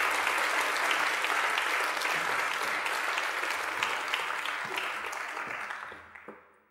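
Audience applauding steadily, the clapping fading away over the last second or so.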